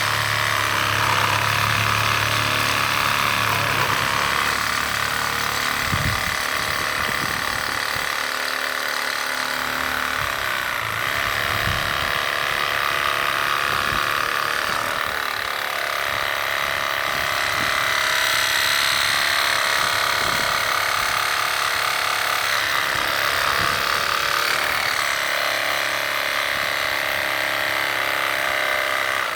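Reciprocating saw (Sawzall) cutting through an aluminum wheel rim, a loud steady rasp of the blade on the metal.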